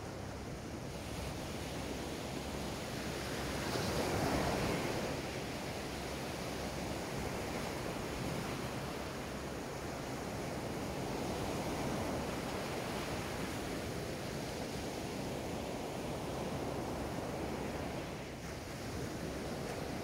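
Small waves breaking and washing up a sandy beach, a steady surf wash with one louder breaking wave about four seconds in.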